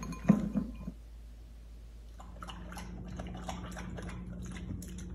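Great Pyrenees puppy eating from a bowl: irregular chewing and small clicks, with a sharp knock about a third of a second in. From about two seconds in come wetter, sloppy chewing and clicks in a stainless steel bowl, over a steady low hum.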